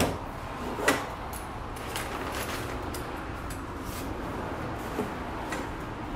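Folding camp chairs with metal frames being handled and set down on a pickup's bed: a few scattered knocks and rattles, the loudest right at the start and about a second in.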